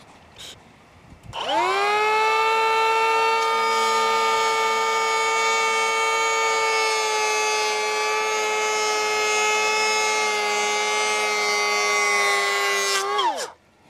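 DeWalt DCP580 20V cordless power planer spinning up with a rising whine about a second and a half in. It runs at a steady pitch while shaving a pass along a wooden beam, then winds down shortly before the end.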